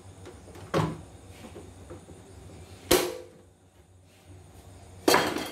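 Three separate sharp knocks about two seconds apart, hard objects striking as a screwdriver and the parts of a home embroidery machine are handled. The middle knock rings briefly and the last is a short clatter.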